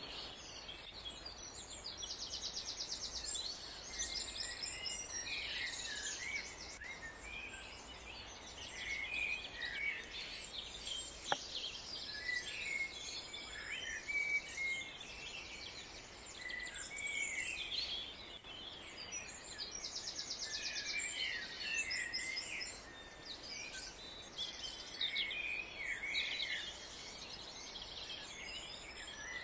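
Songbirds singing and calling, many overlapping chirps and short phrases, with a fast high trill about two seconds in and again past the middle.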